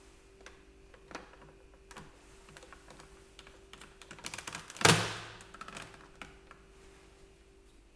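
Plastic parts of a Dyson V6 cordless vacuum being handled: scattered light clicks and taps, a quicker run of clicks, then one loud sharp clack about five seconds in that fades over about a second.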